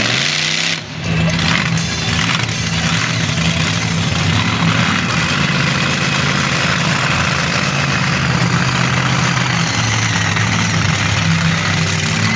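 Monster truck's engine running, its pitch rising at first, dipping briefly about a second in, then holding steady as the truck drives slowly across the arena.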